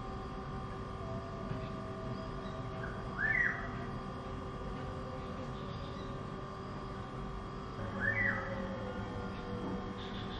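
A bird chirping: two short high calls, each a quick rising-and-falling pair, about three seconds and eight seconds in, over a steady background hum.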